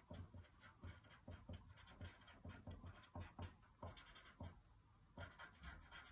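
Felt-tip marker writing on paper laid on a wooden table: a quick string of short, faint scratchy strokes with light taps as the tip lifts and lands.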